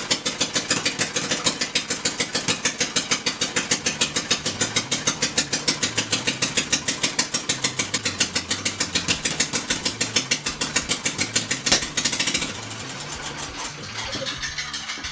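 John Deere riding mower's engine running with a rapid, even pulsing exhaust. About twelve seconds in it drops to a quieter, softer run, as if throttled down.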